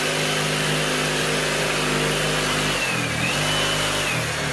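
Reciprocating saw (Sawzall) running steadily as it cuts, its motor pitch sagging briefly about three seconds in, then picking back up.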